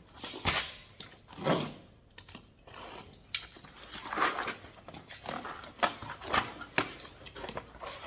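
Small boxes and loose stainless steel fasteners being handled: irregular rustling with sharp clicks and clinks, with louder rustles about half a second and a second and a half in.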